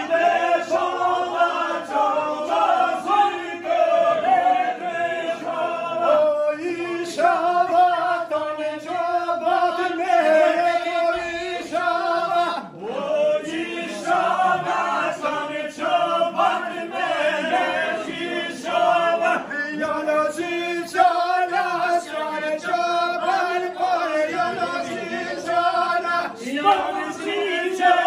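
A group of voices singing a folk song together, holding long notes in phrases that break every second or two.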